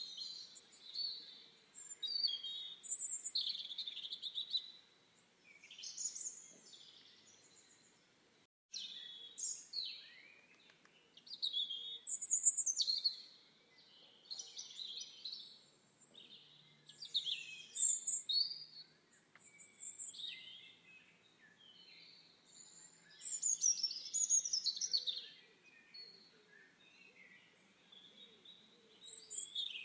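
Several songbirds singing and chirping, short trills and sweeping phrases overlapping in clusters every couple of seconds. The sound cuts out for an instant about nine seconds in.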